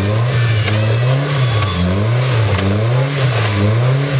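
Super série trial 4x4's engine revving up and down over and over, rising and falling about every three-quarters of a second. It is under load while the vehicle fights for traction on a muddy slope.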